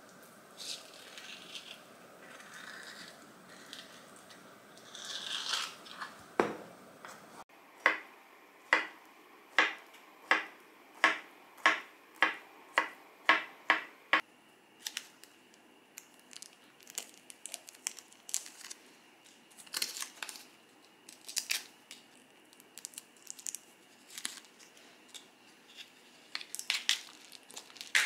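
Avocado skin being prised off with a spoon, soft scraping and crinkling. Then a kitchen knife slicing the avocado thinly on a wooden cutting board: a steady run of about a dozen knocks, roughly two a second. After that, lighter irregular taps and clicks.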